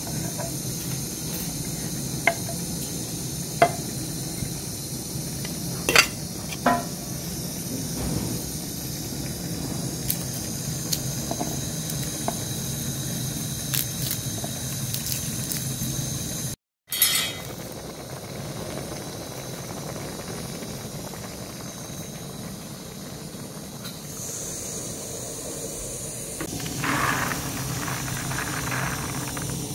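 A kitchen knife taps and scrapes sharply a handful of times on a wooden cutting board as chopped onion is pushed off into a metal tray, over a steady background hiss. Near the end comes a short rush as hot, steaming mung beans are poured into a plastic colander.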